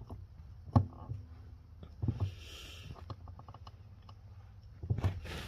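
Brake pedal of a 2011 Mercedes-Benz R350 being worked, giving a few dull knocks and a run of light clicks. This is the weird pedal noise that the owner believes comes from metal-to-metal contact under the pedal that needs lubricating.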